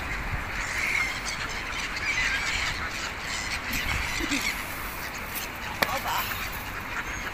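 A flock of gulls and ducks calling and squabbling over thrown bread, with repeated squawks in the first few seconds. A single sharp click comes late on.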